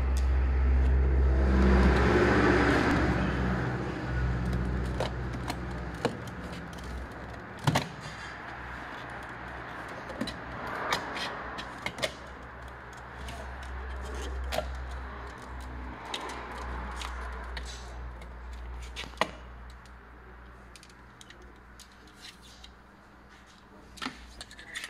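Plastic interior trim and its retaining clips on a BMW front door clicking and snapping as they are pried loose with a screwdriver. A sharp snap comes about eight seconds in and others are scattered through. A low steady hum runs underneath, loudest in the first few seconds.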